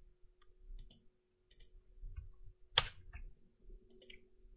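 Scattered clicks of a computer mouse and keyboard keys, a handful over a few seconds, the loudest near three seconds in, over a faint steady hum.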